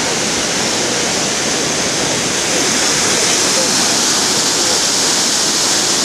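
Water gushing into a canal lock chamber through the upper gate's sluices as the lock fills to lift the boats: a loud, steady rush of churning white water.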